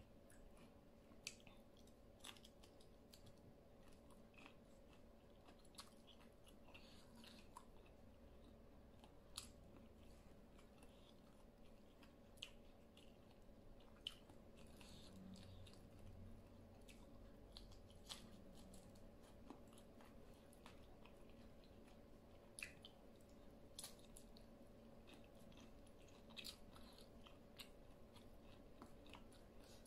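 Faint chewing of a salad eaten by hand, with scattered small clicks of mouth sounds.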